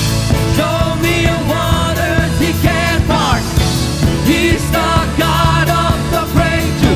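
Live praise-and-worship band playing a song at full volume: drums, bass and other instruments under a singing voice.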